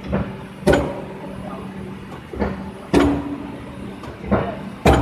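SWZ700A CNC beam line marking unit working: sharp metallic clunks about every two seconds, each of the later ones led by a softer knock, over a steady machine hum.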